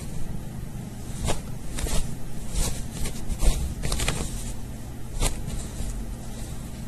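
Cloth rustling and scattered light scrapes and clicks over a low rumble, as a cat paws at an electric blanket's plastic controller.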